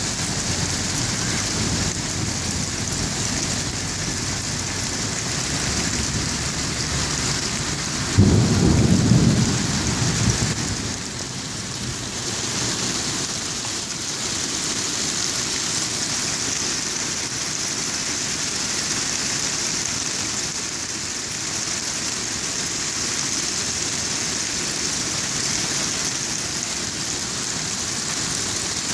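Hail and rain falling steadily on a shingled roof and the street. About eight seconds in, a sudden low clap of thunder rumbles for a couple of seconds, the loudest sound here.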